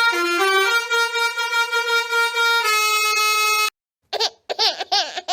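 A musical bus horn playing a short tune of held, reedy notes that step between a few pitches, cutting off abruptly about three and a half seconds in. After a brief gap come several short sounds that swoop up and down in pitch.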